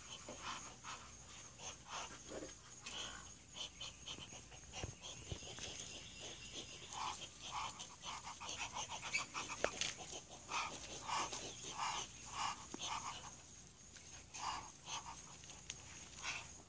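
Domestic ducks calling: short, soft quacks in quick runs, mostly in the second half, over a steady high insect drone.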